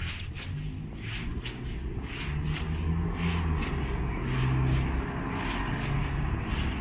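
A van's engine running low as the van creeps closer, growing louder, with footsteps on asphalt about twice a second.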